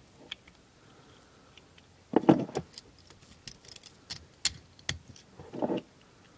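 Handling noise from small GoBots toy robot figures: light clicks and clatter of their parts, with two louder bumps of the figures knocking and rubbing against the hands, about two seconds in and near the end.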